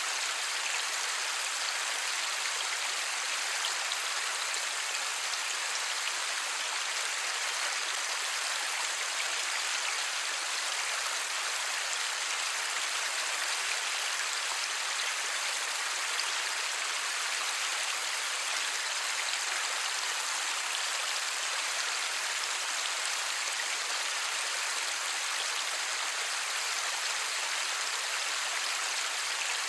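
Steady light rain falling, an even hiss with no thunder.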